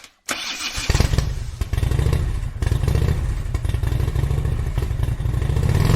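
Motorcycle engine running, starting about a third of a second in and building up over the first second into a steady, fast-pulsing exhaust note.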